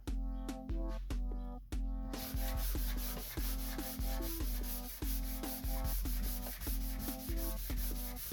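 Electronic background music with a steady beat and deep bass. About two seconds in, a rasping noise layer comes in and pulses fast and evenly.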